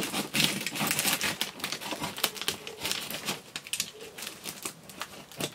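Hands handling a tape-wrapped, brown-paper-covered cardboard box and cutting into it with a utility knife: a busy, irregular run of clicks, taps and crinkles of paper and tape.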